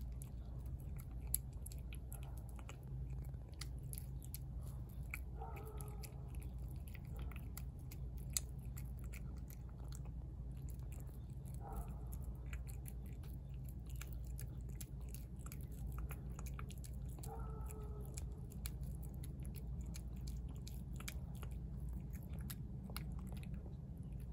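Cat eating wet chicken pâté cat food from a dish: a run of small, sharp wet chewing and licking clicks, over a steady low hum.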